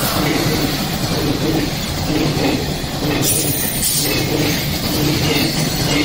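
A container freight train hauled by an electric locomotive is passing close by. Its wheels run steadily on the rails with a loud continuous noise, and there is brief higher-pitched wheel noise about three seconds in.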